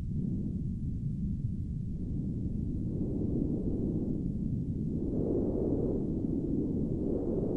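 Wind sound effect: a low rushing noise that swells and ebbs in gusts every second or so, growing louder toward the end.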